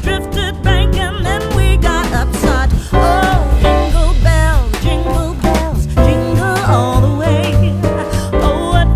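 Background music: an upbeat song with a sung vocal line over guitar, bass and a steady beat.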